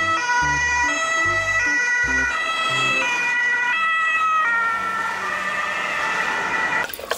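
Ambulance siren sound, its pitch switching in steps about every half second rather than gliding. In the last couple of seconds it gives way to a running-water hiss.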